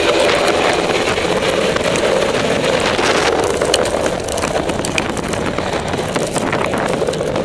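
Helicopter running close by at low hover or on the ground, a loud, steady mix of rotor noise and turbine engine; the high hiss eases about three seconds in.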